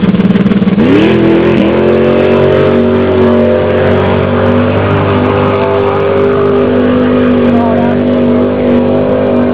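Swamp buggy's big V8 engine revving up about a second in, then held at a high, steady pitch at full throttle.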